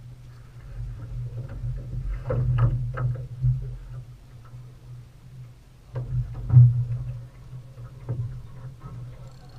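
Muffled knocks and clicks of a fishing rod being grabbed and handled in a small boat, the loudest knock about six and a half seconds in, over a steady low rumble.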